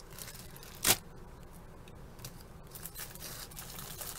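Plastic bag of small clear lip gloss tube inserts being handled: one sharp crackle about a second in, then faint scattered clicks and rustles.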